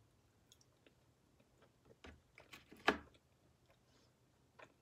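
A person chewing a mouthful of food: faint, scattered wet clicks and smacks of the mouth, with one louder smack about three seconds in.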